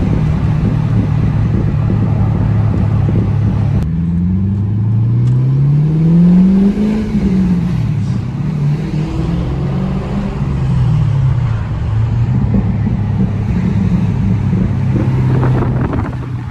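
Holden VZ SV8 Commodore's 5.7-litre LS1 V8 running. About four seconds in the sound changes abruptly and the engine revs up over a few seconds, then falls back, followed by a couple of smaller rises and falls in engine pitch.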